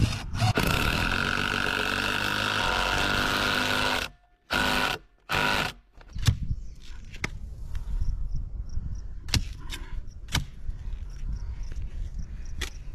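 A handheld power tool runs steadily for about three seconds, then stops. Later a long-handled digging tool is driven into soil and stones at a post hole, with a sharp knock or scrape every second or so.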